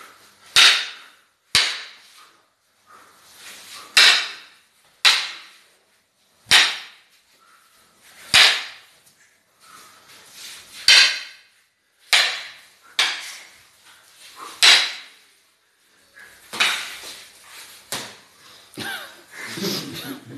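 Arnis sticks striking in sparring: sharp, irregular cracks, about a dozen of them, some in quick pairs, each with a short echo off the bare walls.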